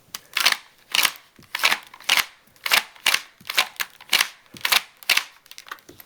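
A homemade paper pump-action shotgun having its pump racked again and again, cycling empty shells through the action. It makes a sharp clack about twice a second.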